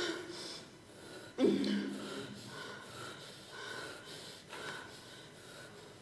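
A person's breathy, gasping vocal sounds in short repeated bursts. About one and a half seconds in comes a sudden louder groan that falls in pitch and holds. The breaths then go on more faintly and die away.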